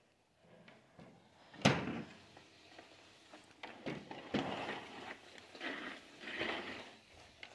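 A single sharp knock about a second and a half in, then irregular scraping and rustling handling noises, with no motor running.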